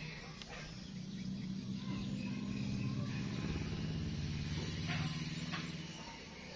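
A motor engine humming steadily, growing louder through the middle and easing off near the end.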